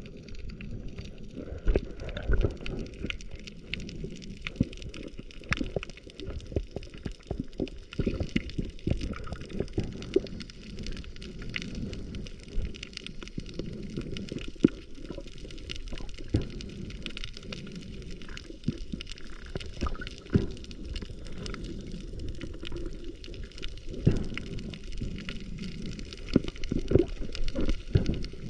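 Muffled sea-water sound as heard through a submerged camera housing: a low sloshing wash with many small clicks and crackles throughout.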